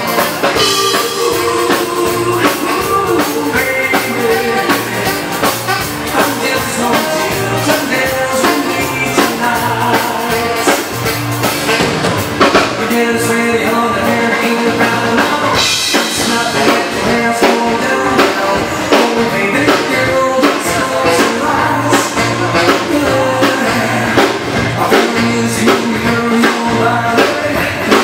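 Live Swedish dansband music for bugg dancing: a singer over drums and band with a steady, even beat.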